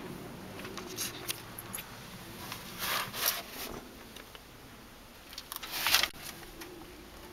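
Rustling and handling noise inside a car cabin, with a few light clicks, loudest about three seconds in and again just before six seconds, over a faint steady hum.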